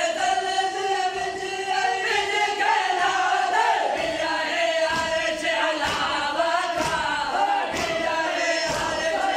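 Men's voices chanting a noha in chorus, with the sung lines held long. From about four seconds in, the mourners strike their chests in unison (matam) about once a second, in time with the chant.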